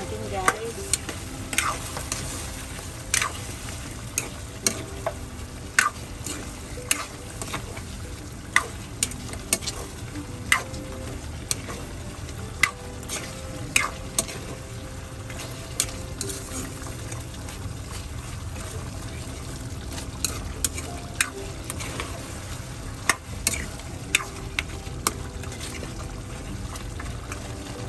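Chicken pieces being stirred in a pan with a plastic spatula over a steady sizzle, the chicken cooking in its own released juices. The spatula knocks and scrapes against the pan in frequent short, sharp clicks at an irregular pace.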